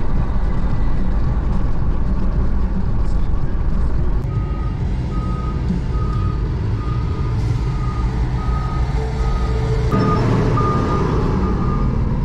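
Car driving on a highway, heard from inside the cabin: steady engine and road rumble. About four seconds in, a high beep starts repeating about once every 0.7 seconds.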